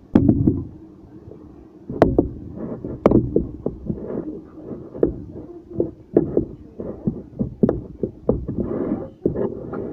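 A spoon stirring and beating cake batter in a dish, knocking against its sides in quick, irregular taps, with sharper knocks at the start and about two and three seconds in.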